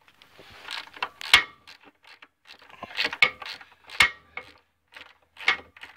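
Socket ratchet clicking in several bursts of quick strokes, undoing the bolts that hold a small engine to a log splitter's mounting plate.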